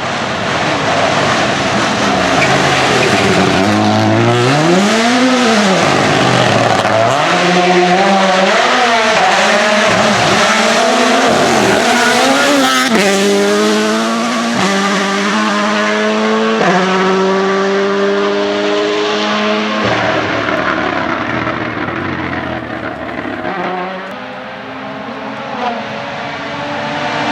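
Rally car engine driven hard, its pitch sweeping up and down as it revs, then jumping in abrupt steps at quick gear changes as the car accelerates; the sound eases off near the end as the car moves away.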